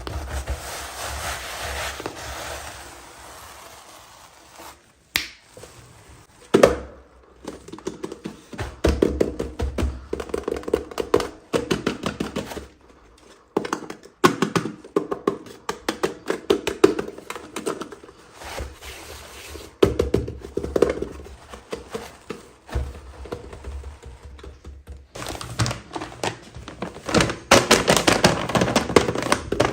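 Toy packaging and small plastic toy pieces being handled and opened, giving irregular taps, clicks and thunks in clusters, busier near the end.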